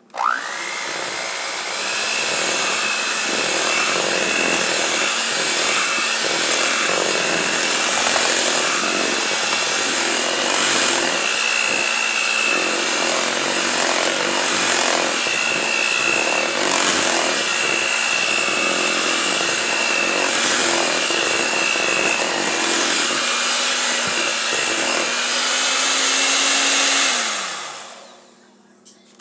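Electric hand mixer running with its beaters churning thick cake batter as dry flour is beaten in. The motor starts with a quick rising whine, runs steadily, then winds down with falling pitch about two seconds before the end.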